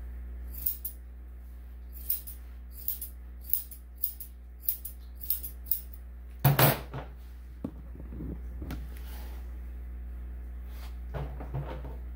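Grooming scissors snipping a dog's face hair: a string of short, sharp snips at an uneven pace, about ten in the first six seconds. A louder brief noise comes midway, followed later by a few softer handling sounds.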